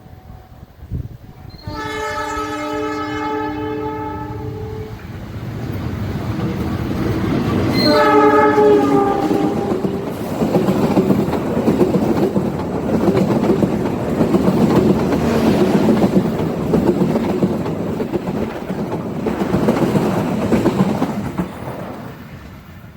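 An Indonesian railway locomotive sounds its multi-tone horn in a long blast of about three seconds, then a shorter blast whose pitch falls. The train then passes with a loud rumble and wheel clatter that dies away near the end.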